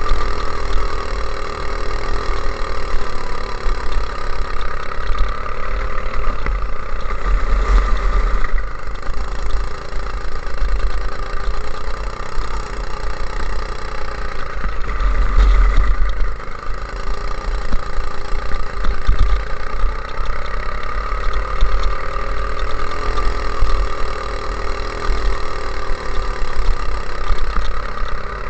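Go-kart engine running continuously at speed, picked up by the onboard camera, its pitch rising and falling gently with the throttle. A heavy low rumble of wind and vibration sits under it and swells twice.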